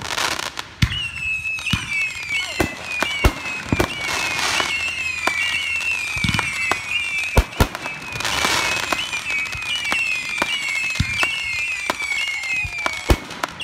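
Aerial fireworks display: repeated sharp booms of shells bursting, over a near-continuous string of whistles that each fall in pitch. Stretches of hissing crackle come in about four seconds in and again past the middle.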